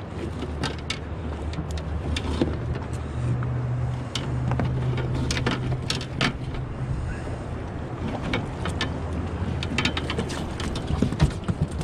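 A boat's outboard motor idling steadily with a low hum, with scattered clicks and knocks of fishing gear and the landing net being handled on the deck.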